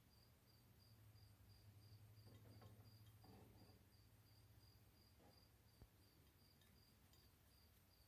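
Near silence: a faint low hum with a cricket chirping steadily, about three chirps a second, and a few soft rustles in the middle.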